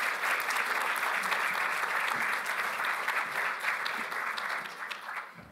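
Audience applauding, many people clapping at once, trailing off near the end.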